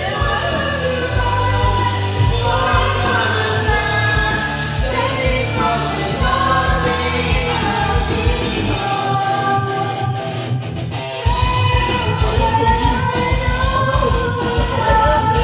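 Background music: a song with a sung vocal over drums and bass. The bass and drums drop out for about two seconds near the middle, then come back in.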